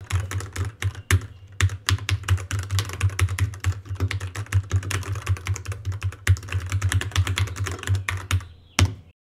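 Fast, continuous typing on a Royal Kludge RK100 mechanical keyboard: a dense patter of key clicks that stops abruptly just before the end.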